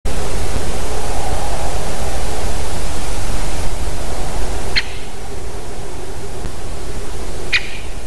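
Great spotted woodpecker giving two short, sharp 'kik' calls, the first about halfway in and the second near the end, over a loud steady hiss that eases a little halfway through.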